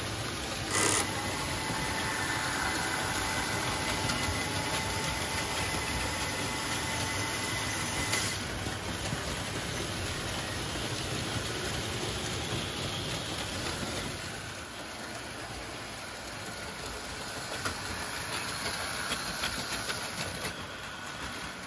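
Märklin HO model trains running on the layout: a steady mechanical running noise of small motors and wheels on track, with a sharp click about a second in and another around eight seconds, and a faint steady whine over the first eight seconds. The noise thins and drops a little after about fourteen seconds.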